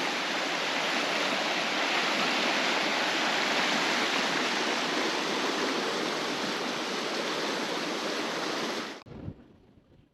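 River water rushing steadily through a washed-out low-water crossing, pouring into a hole in the middle of the crossing, which is taken as a sign that the culvert is plugged. The rush cuts off suddenly about nine seconds in.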